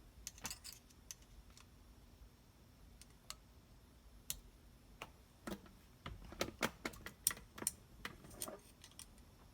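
Scattered light clicks and taps of parts and tools being handled while fitting a steering wheel quick-release hub, sparse at first, then a quick run of them from about six seconds in.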